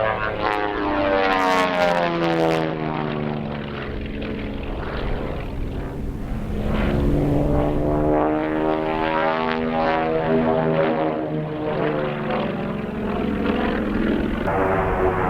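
Propeller airplane flying past with a steady engine drone. Its pitch slides down over the first few seconds as it passes, and the tones sweep again from about six seconds in.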